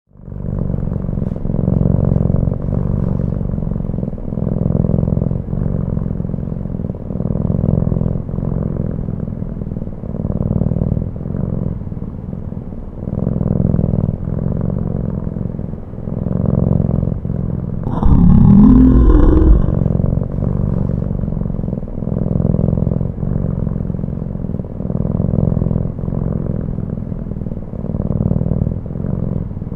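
A domestic cat purring close to the microphone: a low rumble that swells and fades in a steady rhythm with its breathing. About two-thirds of the way through, the cat gives a short voiced yawn that rises and then falls in pitch.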